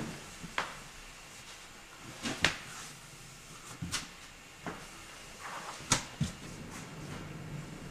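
Irregular sharp knocks and clicks, about half a dozen, the loudest about two and a half and six seconds in, with a faint low hum rising near the end.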